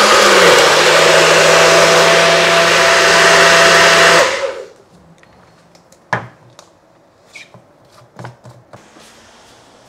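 Personal bullet-style blender running at full speed, blending a smoothie of frozen banana, ice and spinach for about four seconds, then cutting off. A few light knocks follow.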